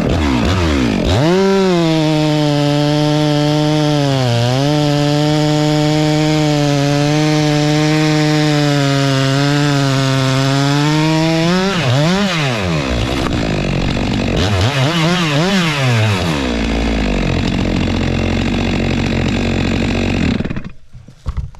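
Stihl 462 C two-stroke chainsaw with a 25-inch bar cutting a log. It is held at high, steady revs under load for about ten seconds, with a brief dip, then revved up and down a few times before dropping to idle and going quiet near the end.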